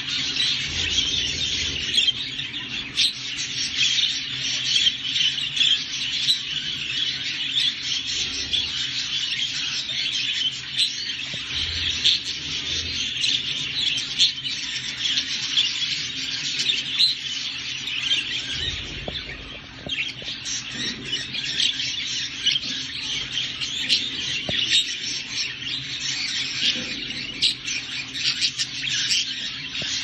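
Crested budgerigar warbling: a continuous, fast chatter of chirps, clicks and squeaks without a break.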